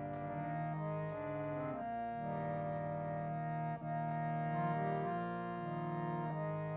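Harmonium playing slow, sustained chords that change every second or two, with no singing.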